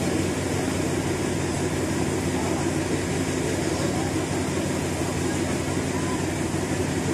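Diesel passenger train standing with its engine idling: a steady drone with a low hum that does not change.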